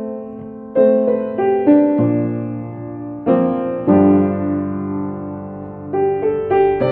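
Slow solo piano music: single notes and chords struck every half second or so and left to ring and fade.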